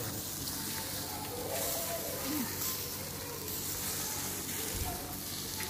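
Minced-meat kebabs sizzling steadily as they brown and cook.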